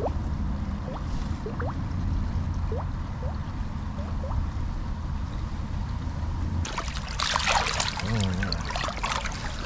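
Stream water gurgling, with a low rumble and scattered short rising bubbly chirps. About seven seconds in it changes suddenly to splashing and dripping as a hand lifts the trout out of the water in the landing net.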